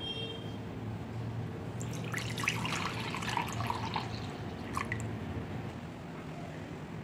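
Warm milk poured from a steel measuring cup into a glass bowl, splashing for about two seconds, followed by a brief tap about five seconds in.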